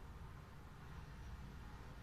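Faint room tone: a steady low rumble with light hiss and no distinct sound events.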